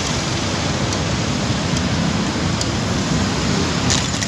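Steady city street traffic noise heard from a moving rider, with a low rumble throughout, a few faint ticks, and a short sharp knock near the end.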